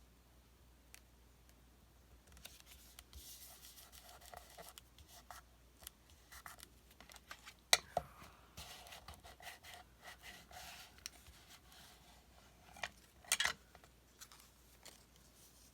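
Scissors cutting craft paper, with rustling as the paper is handled and a few sharp taps, the loudest about halfway through and near the end.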